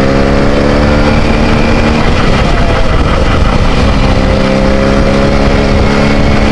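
Benelli TNT 300 parallel-twin engine running at a steady cruising speed through a loud aftermarket SC Project exhaust, heard from the rider's seat. The steady note breaks up into a rougher noise for about two seconds midway, then returns.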